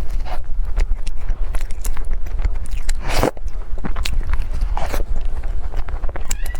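Close-miked eating: bites and chewing with many small crunchy clicks, and one louder crunch about three seconds in.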